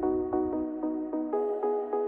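Background music: a repeating pattern of short pitched notes, about three a second, changing chord about two-thirds of the way through.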